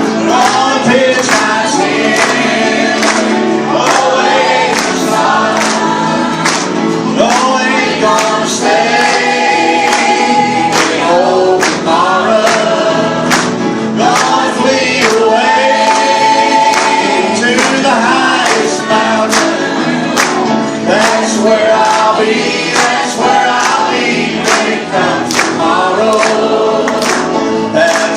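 Gospel song performed live: a choir and lead singer over a band with a steady drum beat.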